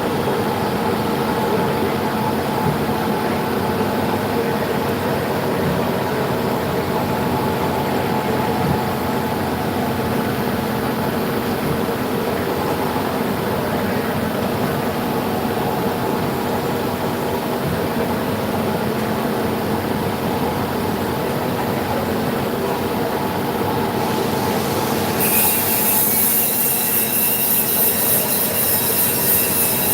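CNC vertical machining centre running a machining job: a steady machine noise with several held tones. About 25 seconds in, a loud high hiss starts suddenly and continues.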